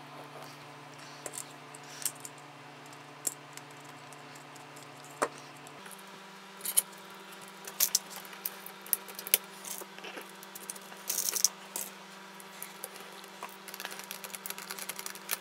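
Scattered light clicks and clacks of 3D-printed plastic turbofan parts being handled and fitted together, more frequent in the second half, over a steady low hum.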